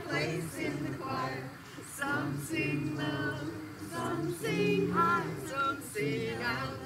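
Congregation singing together without accompaniment, mixed voices holding notes in sung phrases with short breaks between them.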